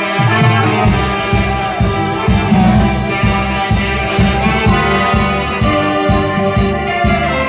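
Live band playing dance music, with several instruments over a steady beat.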